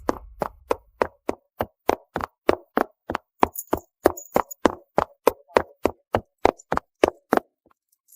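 Dance steps on a floor: sharp, evenly spaced taps about three a second that stop short near the end.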